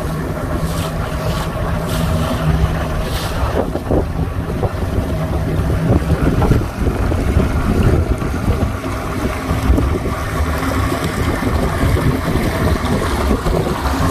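Yamaha 115 outboard motor running steadily as the skiff cruises across choppy water, its low hum mixed with water rush and wind buffeting the microphone.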